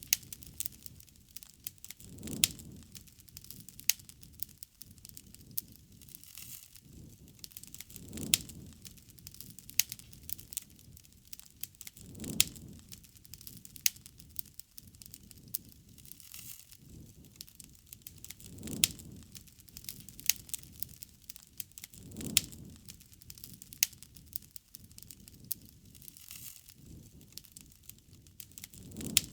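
Wood fire crackling, with a constant scatter of small snaps and a few sharp loud pops. Under them a low soft whoosh swells up every few seconds.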